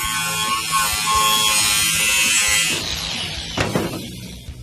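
Power saw cutting through a boat hull, a loud high-pitched whine that fades out about three seconds in, followed by a brief knock.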